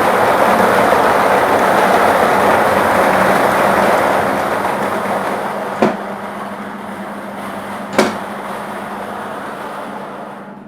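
Lottery ball draw machine running, its numbered plastic balls tumbling and clattering in a steady dense racket. The noise eases off gradually over the second half, with two sharp single clacks about six and eight seconds in.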